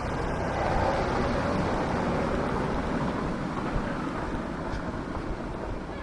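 A vehicle going by: a broad rushing noise that swells about a second in and slowly eases off.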